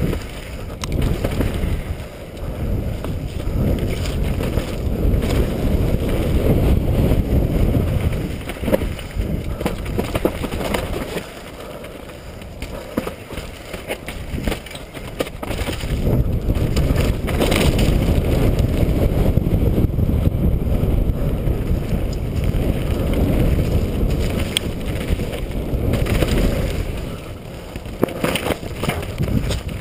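Wind rush and the rumble of knobby tyres on a dirt trail picked up by a rider-mounted GoPro HD Hero during a fast downhill mountain bike descent, with frequent knocks and rattles from the bike hitting bumps. The rush eases off for a few seconds near the middle.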